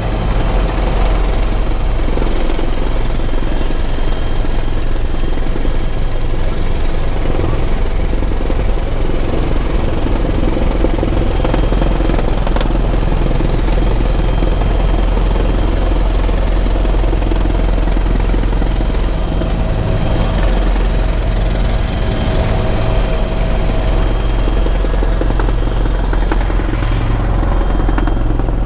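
Bell 412 helicopter heard from inside the cockpit in flight: its twin turbine engines and rotor make a steady, loud drone, a deep rumble with a thin high whine over it.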